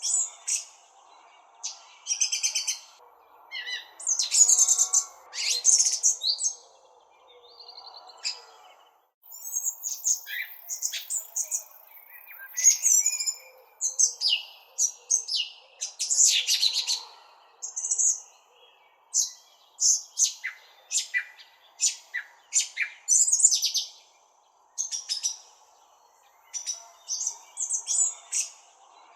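Songbirds chirping and tweeting in quick, short, high calls, one after another, over a faint steady background hiss.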